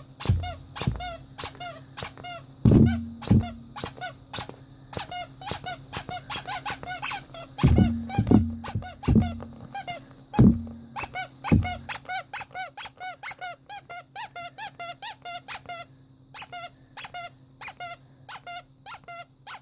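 Ledraplastic rubber Pinocchio squeaky toy squeezed over and over: a fast run of short, pitched squeaks, about two to three a second, with a few deeper thuds of the toy being handled among them and a brief pause about sixteen seconds in.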